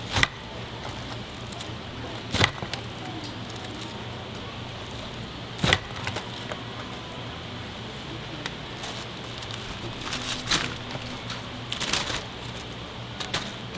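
A lever-mounted jakdu chopper blade chopping through a crisp whole fried chicken onto a wooden board: sharp, crunchy chops a few seconds apart over a steady low hum. A paper bag rustles near the end.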